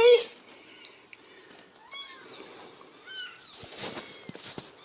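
Very young Ragdoll kittens mewing: a few short, thin, high-pitched mews, with soft rustling and scratching on the blanket late on.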